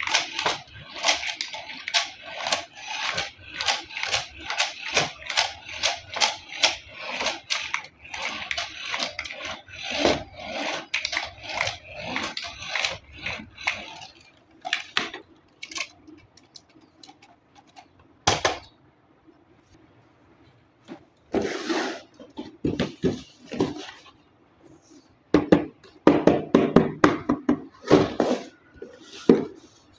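Unboxing handling of packaging and a plastic toy car: a dense run of rapid crinkling and clicking for about the first half, then scattered clicks and knocks, with a cluster of louder knocks near the end.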